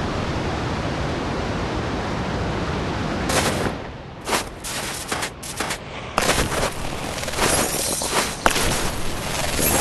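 Rushing noise of a snowboard run on the camera microphone, wind and board on snow: steady for about three seconds, then broken into irregular short bursts.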